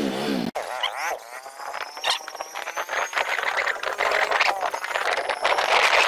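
Motorcycle ride: the engine runs under wind rushing over the microphone, and the wind noise grows louder from about five seconds in.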